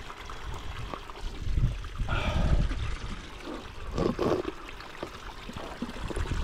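Spring water trickling from a pipe spout as a man drinks straight from it, with two short louder splashy bursts about two and four seconds in.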